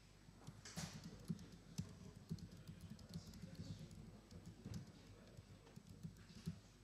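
Faint typing on a computer keyboard: a run of irregular keystroke clicks as a line of text is typed into a terminal.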